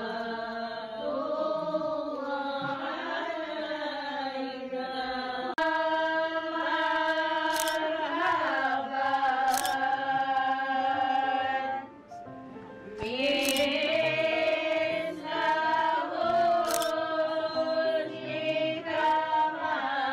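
Music with voices singing a slow, chant-like melody in long held notes. The sound changes abruptly about six seconds in and drops briefly about twelve seconds in.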